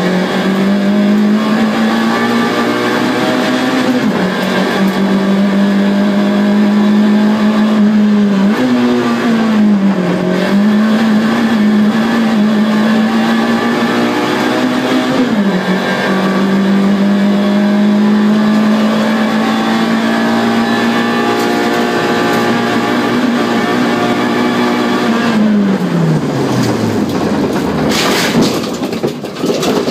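Car engine heard from inside the cabin, running at a steady pitch that steps up and down a few times. About 26 seconds in, the engine pitch falls away, and near the end come a burst of crashing and scraping as the car leaves the road and rolls over into brush.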